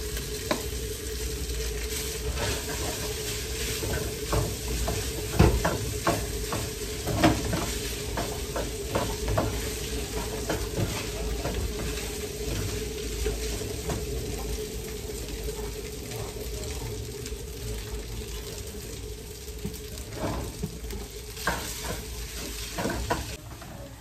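Cooked rice frying with a steady sizzle in a pan on a gas burner while it is stirred and turned with a wooden spatula, with frequent knocks and scrapes of the spatula against the pan. A steady hum runs underneath.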